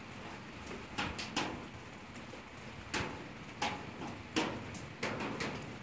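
Bonfire crackling in a metal fire-pit barrel: irregular sharp pops, about one a second, over a soft steady hiss.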